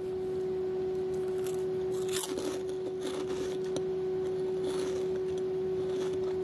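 Lay's Poppables puffed potato chips being bitten and chewed, crunching several times from about two seconds in. A steady humming tone runs underneath.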